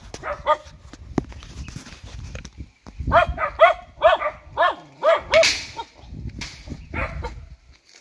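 A dog barking in short, high yaps: two near the start, then a quick run of about eight in the middle.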